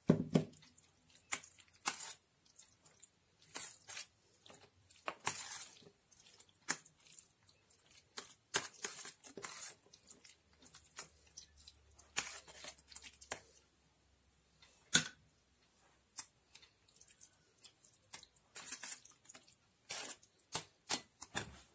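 Metal spoon spreading mayonnaise over a layer of chopped mushrooms: irregular wet scraping and squishing, with a few sharp clicks of the spoon, one standing out about 15 seconds in.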